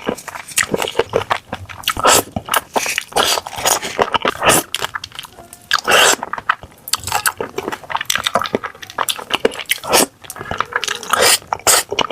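A person eating: biting and chewing with irregular, frequent crunching clicks.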